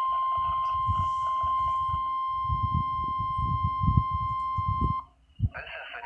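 NOAA Weather Radio 1050 Hz warning alarm tone sounding from the Cobra CXY900 radio's speaker during the required weekly test. It is one steady high-pitched tone that cuts off suddenly about five seconds in.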